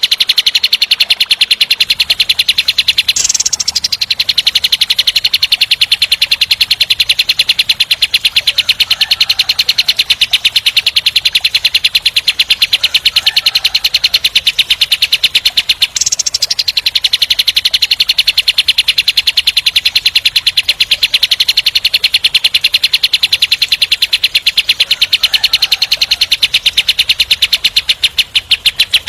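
Kapas tembak bird singing its 'tembak' song: a loud, very fast, tightly packed rapid-fire trill of harsh high notes that runs almost without pause. It breaks off briefly about three and a half seconds in and again about sixteen seconds in.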